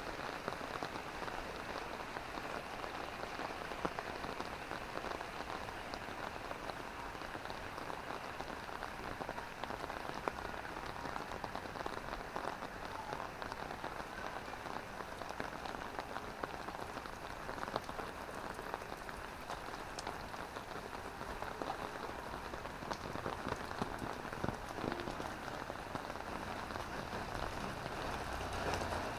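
Drizzling rain falling steadily, with many small drops pattering.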